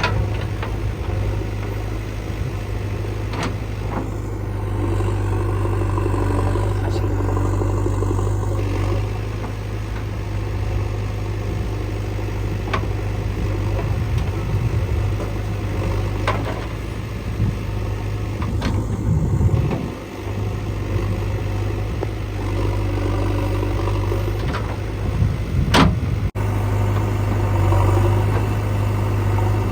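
Diesel engines of a JCB 3DX backhoe loader and a tractor running steadily under load, with a few sharp knocks scattered through it.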